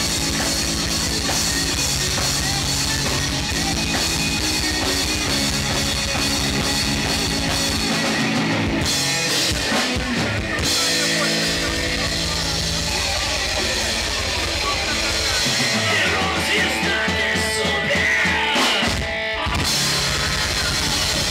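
Rock band playing: electric guitars over a drum kit with a steady driving beat. The band thins out to guitar for a couple of seconds about eight seconds in, and stops for a moment near the end before coming back in.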